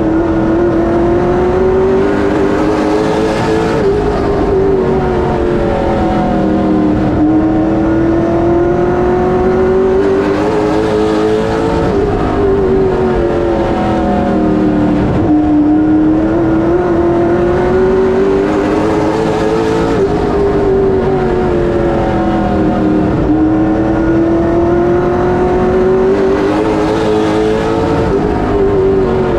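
Late model stock car's V8 engine at racing speed around a short oval: the engine note climbs steadily down each straight, then drops sharply as the driver lifts for the corner, about every eight seconds.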